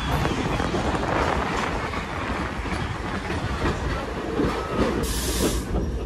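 Open excursion car rolling along the track, a steady rumble with scattered wheel clicks. A brief hiss comes about five seconds in.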